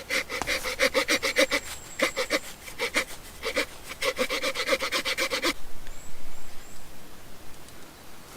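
Swiss Army knife's small saw blade cutting through a wooden stick with quick back-and-forth strokes and a ringing edge to each stroke. It breaks off briefly a few times and stops about five and a half seconds in.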